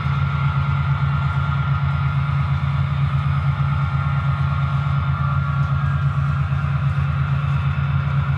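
Sound decoders of an HO-scale Broadway Limited Paragon 4 EMD F7 diesel set playing the diesel prime mover running steadily under throttle, with a strong low rumble from the Rolling Thunder bass system.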